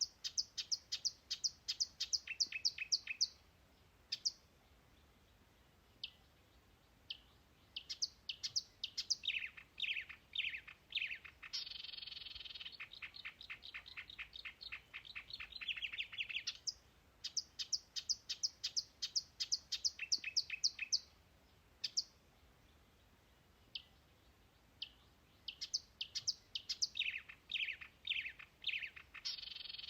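Songbird singing: phrases of rapid, high chirps and trills a few seconds long, some sliding downward, with pauses of several seconds between them.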